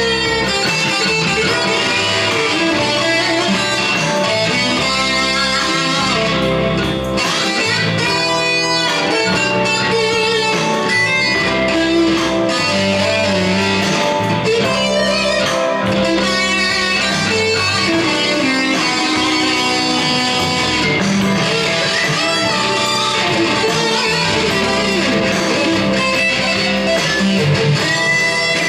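Electric guitar, a Stratocaster-style solid-body, played continuously over a backing track with a bass line, the guitar bending notes near the start and near the end.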